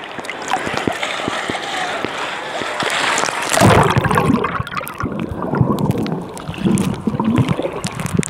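Sea water lapping and splashing around a phone held at the surface, with many small ticks of water on the microphone. About three and a half seconds in, the sound turns loud, low and muffled as the phone goes under the water.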